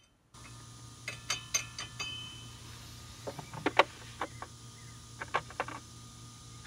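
Metal sockets and tools clinking and clattering against each other, a dozen or so light clicks with short metallic ringing, as the right size is sought. A faint steady low hum lies underneath.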